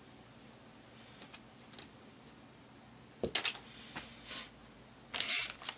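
Small plastic toy parts and a clear plastic parts bag handled on a tabletop: a few light clicks and taps, with two louder crinkling rustles, one about three seconds in and a longer one near the end.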